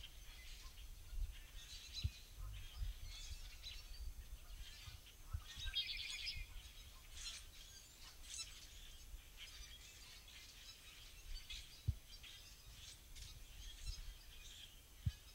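Male red-winged blackbird singing its trilled song once, about six seconds in, over many short chirps and calls from other birds. Two brief low thumps come late on.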